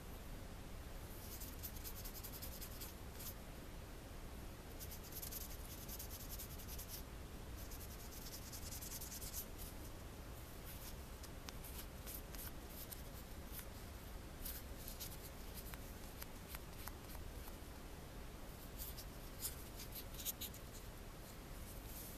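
Polishing pad rubbed briskly against a small copper charm, faint scratchy buffing in spells, then scattered light ticks in the second half. This is the buffing that takes the liver-of-sulfur patina off the raised surfaces to give an antiqued look.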